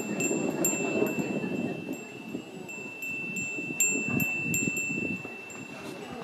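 Japanese furin, a metal bell-shaped wind chime, ringing as its clapper strikes: clear high rings struck a few times in the first second and again in a quick cluster about four seconds in, each left to ring on.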